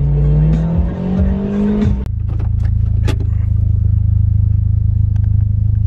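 Mitsubishi Lancer Ralliart's engine heard from inside the cabin, its note rising steadily as the car accelerates, then from about two seconds in settling into a steady, pulsing idle with the car in park.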